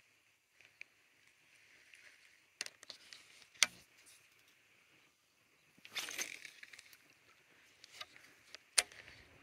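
Rod and spinning reel handled during casting: a few sharp clicks, the loudest near the middle and near the end, and a brief swish about six seconds in, over a faint steady high hiss.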